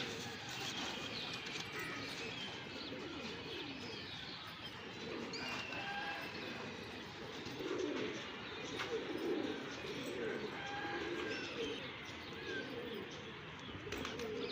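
Pigeons cooing in low, repeated swelling calls, strongest in the middle of the stretch, with other small birds chirping higher up.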